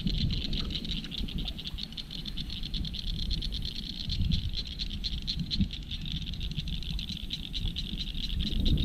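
A steady chorus of calling animals, high-pitched and rapidly pulsing, over a low rumble.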